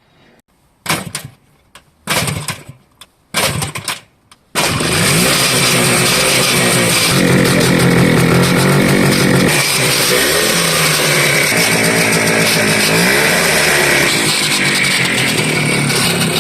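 Restored Jawa motorcycle engine being started: three short sputtering bursts as it is kicked over, then it catches about four and a half seconds in. It runs on loudly and is revved up and down.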